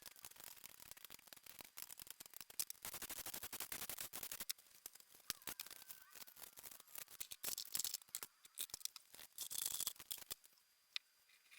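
Hand tools and metal engine parts during an engine teardown: scattered sharp clicks and taps, with two stretches of rapid, even clicking, one about three seconds in and one near the end.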